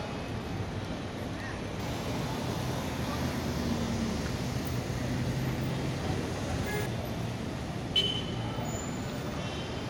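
Street traffic: cars driving past at low speed, a steady rumble of engines and tyres. A single sharp click sounds about eight seconds in.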